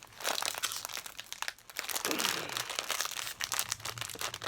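Plastic snack packet crinkling and crackling as it is handled and opened, a dense run of sharp crackles.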